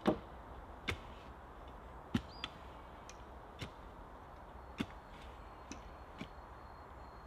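Irregular sharp knocks of a hand tool digging into clay soil at the base of a timber pole, about eight strikes spread unevenly over several seconds.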